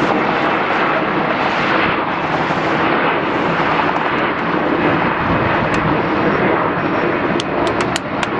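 Jet airliner engines running as aircraft taxi, a steady loud noise. A few sharp clicks come in near the end.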